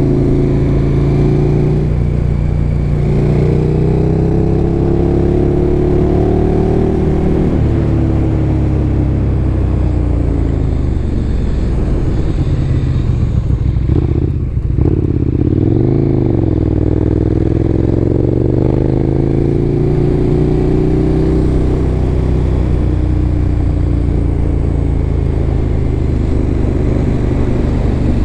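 KTM motorcycle engine heard from the rider's helmet, its pitch rising and falling as the bike accelerates and eases off on the throttle. About halfway through the revs drop low, then climb again, over a steady rush of wind noise.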